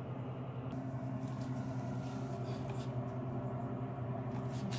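French bulldog moving about at its plastic food and water bowl on a tile floor: scattered faint clicks and scrapes, a couple more near the end, over a steady low hum.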